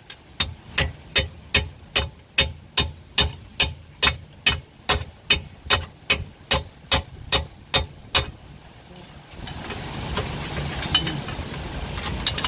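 A hammer striking a long steel chisel in a steady rhythm, about twenty blows at roughly two and a half a second, each with a metallic ring. The chisel is being driven in to spread the pinch point so the new front wishbone assembly will slide in easily. The hammering stops about eight seconds in, and a louder steady rushing noise follows.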